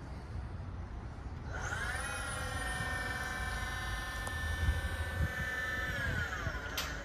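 The electric hydraulic pump motor of a Haulotte 5533A electric boom lift whines as it drives the boom. It spins up about a second and a half in, holds a steady pitch, and winds down near the end, followed by a sharp click, over a low rumble.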